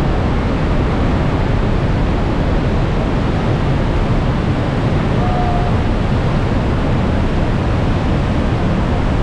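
Trümmelbach Falls' glacial meltwater waterfall rushing through its rock gorge: a steady, loud, unbroken rush of water, deepest in the low end.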